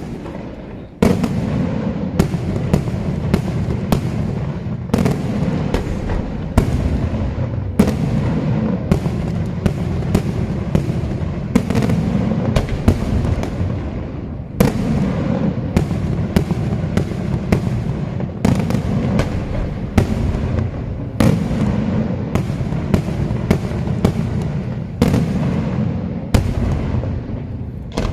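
Daytime aerial fireworks: shells bursting in sharp bangs, one or two a second, over a continuous rolling rumble of echoes. The barrage dies away near the end.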